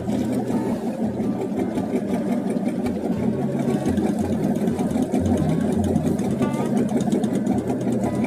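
A steady, low mechanical engine drone, running evenly throughout.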